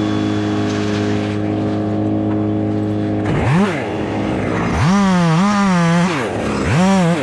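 An engine runs at a steady pitch, then is revved up and down several times: a quick rise and fall, a longer wavering high note, then more short revs.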